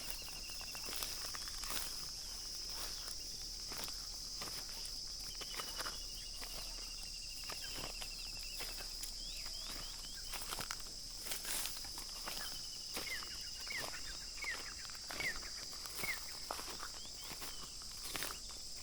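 Outdoor ambience: a steady high-pitched insect drone, with a bird's trilled call falling slightly in pitch three times and a run of short chirps near the end. Scattered footsteps or rustles throughout.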